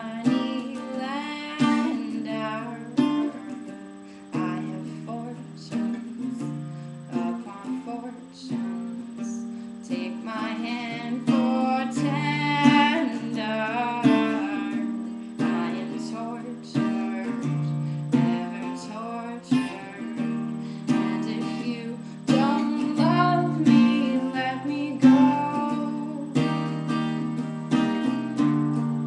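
Acoustic guitar being strummed in a steady rhythm, accompanying a woman singing.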